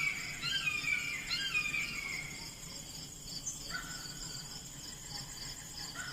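Insects trilling steadily with short chirping calls in falling phrases, which drop away in the middle and come back near the end, over a faint low hum.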